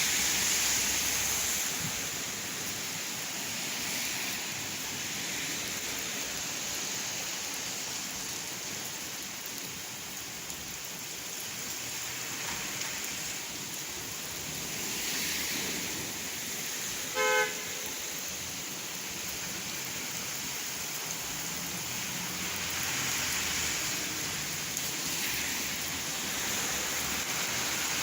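Steady rain falling, with the hiss swelling now and then. A single short horn toot sounds about seventeen seconds in, the loudest moment.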